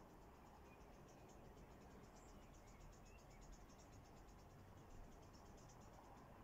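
Near silence outdoors: a faint, high, rapidly pulsing insect trill that stops near the end, with a few faint short chirps.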